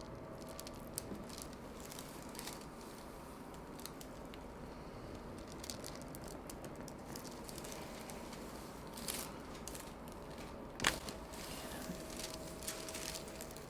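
Faint rustling and crinkling of handling on a chiropractic table as the neck is worked on, with scattered small clicks and one sharper click about eleven seconds in.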